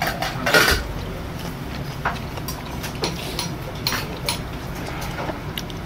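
Metal chopsticks and a spoon clinking against dishes in a series of short, irregular clicks, the loudest about half a second in, over a steady low background hum.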